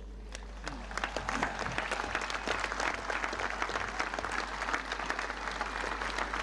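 Large outdoor crowd applauding, the clapping swelling about a second in and then holding as a dense, steady patter.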